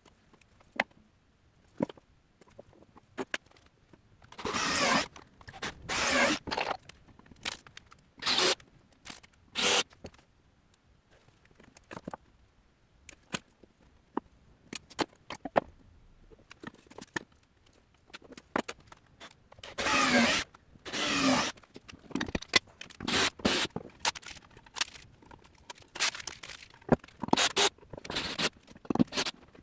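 Short, irregular scraping strokes of hand tool work, grouped in bursts, with scattered clicks and knocks between them.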